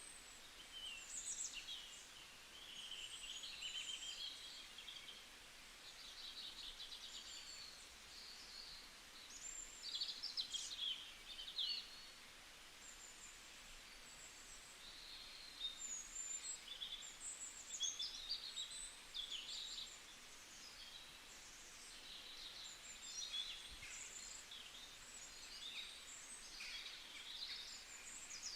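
Wild birdsong: several small birds chirping and trilling, their calls overlapping and quick, with a short lull in the middle, over a faint steady hiss of outdoor background noise.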